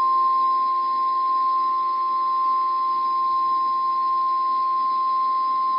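NOAA Weather Radio's 1050 Hz warning alarm tone: one steady, unbroken high-pitched tone held at an even level, the attention signal that a National Weather Service warning is about to be read.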